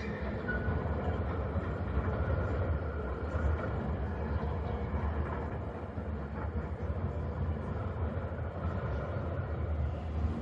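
Tram running along city street tracks at a distance: a steady low rumble, with a faint thin whine in the first few seconds.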